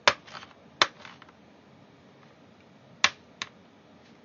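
Sharp plastic clicks as the laptop's bottom case is pried and its clips snap loose: two in the first second and two more about three seconds in.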